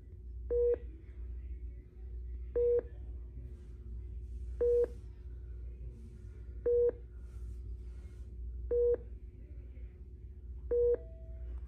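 Hospital patient monitor beeping: six short single beeps, evenly spaced about every two seconds, over a steady low hum.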